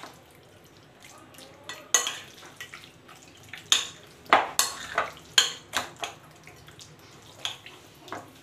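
Chicken pieces in a yogurt and spice marinade being stirred in a glass bowl, with a string of sharp clinks against the glass, most of them between about two and six seconds in.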